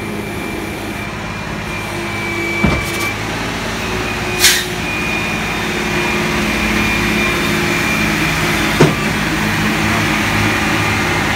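Flatbed tow truck's engine running steadily, slowly growing louder, with a few short knocks and clicks.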